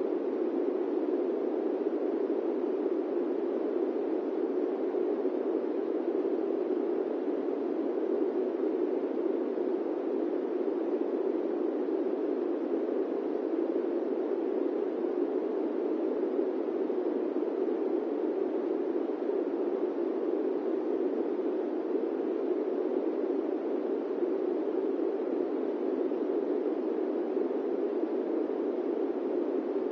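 Electric fan running steadily: an even, low rush of air that never changes.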